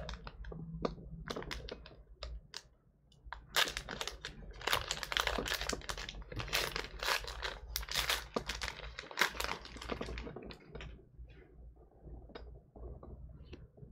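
Trading card pack wrapper crinkling and tearing as it is opened, with cards riffled and clicking against each other. The crackles come thickest through the middle few seconds.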